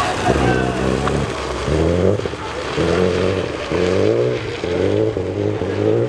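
Renault Clio rally car's engine revving hard as it accelerates, its pitch climbing and dropping about once a second.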